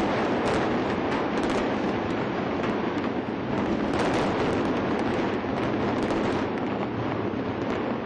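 A concrete-framed building collapsing in a demolition implosion: a continuous loud rumble with sharp cracks scattered throughout.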